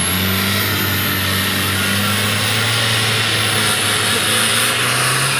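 Off-road 4x4's engine running hard under load as the vehicle claws out of a deep mud pit, a steady drone whose pitch slowly rises from about halfway through.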